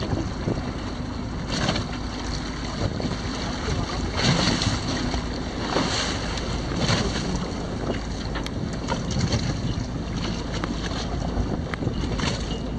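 Wind buffeting the microphone and sea water washing against a fishing boat's hull, with several short louder rushes.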